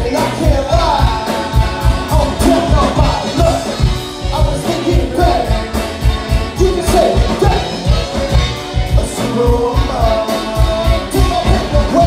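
A live band playing with a steady drum beat, and a vocalist singing into a microphone over it.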